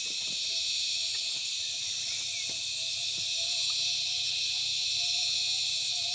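Steady, high-pitched insect chorus buzzing without a break, with a few faint clicks underneath.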